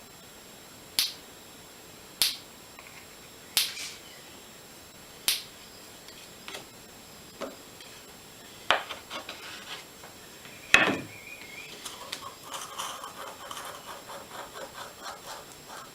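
Workbench handling sounds while epoxy is mixed: about eight sharp knocks and clicks of tools and containers being set down, the loudest about eleven seconds in, then a quick run of soft scrapes in the last few seconds as the epoxy is stirred.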